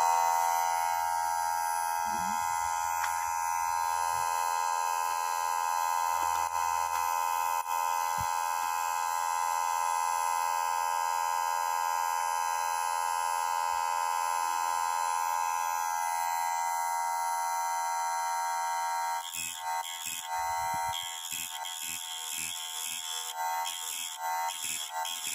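Older electric chain saw sharpener's motor and grinding wheel spinning with a steady high whine. About two-thirds of the way through the whine turns choppy and uneven as the wheel is lowered onto the chain's cutters and grinds them.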